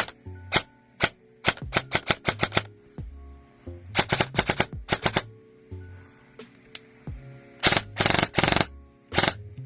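VFC M27 IAR airsoft electric rifle firing: single shots, then quick strings of rapid shots several times a second, with the densest string near the end. Background music plays underneath.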